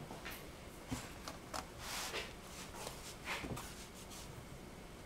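A few faint scrapes and light taps as a razor-blade lame slashes scores into a wet, sticky sourdough loaf lying on a metal peel.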